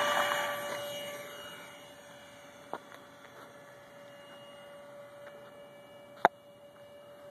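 Redcat FA18 radio-control model jet's motor whining steadily, fading over the first couple of seconds as the plane climbs away, then staying faint. A sharp click sounds about six seconds in.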